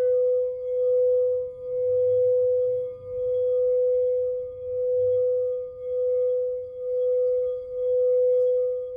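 Purple crystal singing bowl sung by circling a mallet around its rim: one steady ringing tone with fainter higher overtones, swelling and fading about once a second as the mallet goes round.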